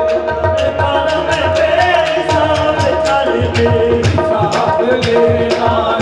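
Live qawwali: male voices singing a held, bending melodic line over tabla and harmonium, with sharp drum strokes at a quick, even beat of about four a second.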